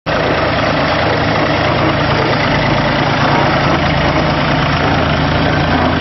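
Balkar B-525 tractor-driven combine harvester running: a steady low engine note under a dense, even noise of the machinery.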